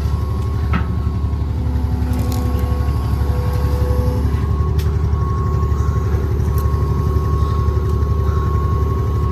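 A vehicle engine running steadily close by, with a low, rapid, even pulse.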